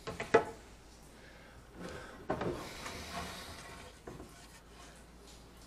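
Wooden boat timbers being handled on a workbench: two sharp knocks of wood on wood or bench about half a second in, then the timber scraping and sliding across the bench for about two seconds.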